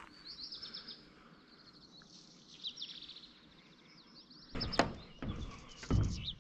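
Birds chirping in quick repeated trills. From about four and a half seconds in, rumbling and thumps close to the microphone, with a few sharp knocks, drown them out.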